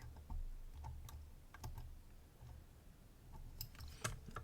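Faint, irregular small clicks of a dimple pick and tension tool working the pins inside a DOM IX HT dimple lock, with a denser run of louder clicks near the end.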